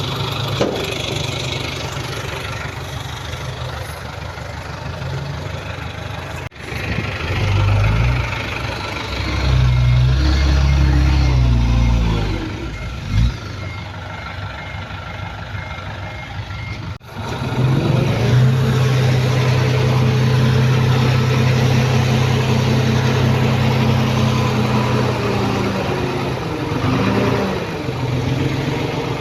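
Diesel engine of heavy earthmoving equipment running and revving, rising in pitch and then holding steady under load. The sound breaks off abruptly twice, about a third and about three-fifths of the way through.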